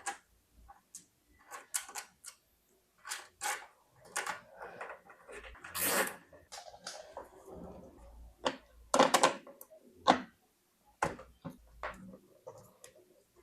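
Desk cables being handled and fastened with plastic zip ties: irregular plastic clicks, short rattles and rustles, coming in small clusters with brief pauses between them.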